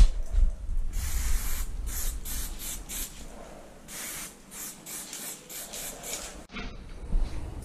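Aerosol spray paint can hissing in a run of short, repeated sprays as paint is laid onto a wall.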